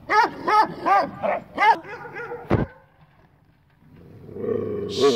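Anatolian shepherd dog barking in a quick series, about three barks a second, then a sharp knock about two and a half seconds in. Near the end a rough, drawn-out growl builds and runs into more barking.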